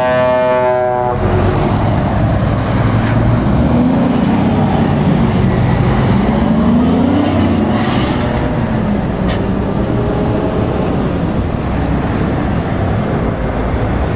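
A truck's air horn sounds for about the first second, then heavy diesel trucks pass at low speed. One engine note rises and falls as a tractor unit pulls away.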